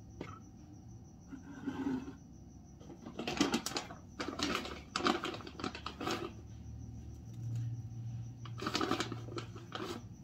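Several short bursts of scraping and rattling from kitchen utensils being worked against a container. A cricket trills faintly throughout.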